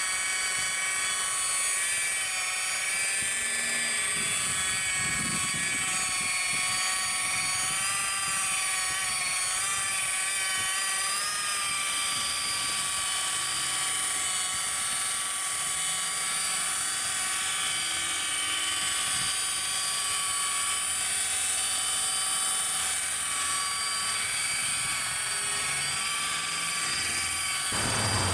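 Electric rotary polisher running steadily with a high-pitched whine as it buffs paint and a light. The pitch dips and recovers slightly as the pad is pressed on. It switches off just before the end.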